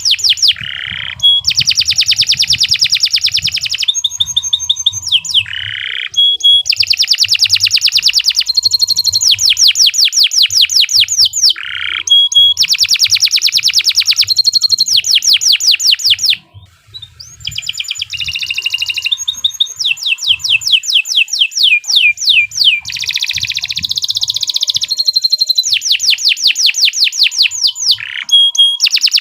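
Domestic canary singing a long, continuous song made of fast rolling trills, with each run of rapid repeated notes giving way to another of a different pitch every second or two, and one brief break a little past halfway.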